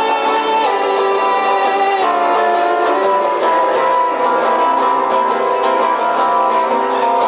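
Acoustic guitar playing an instrumental passage of a song, sustained plucked notes shifting every second or so.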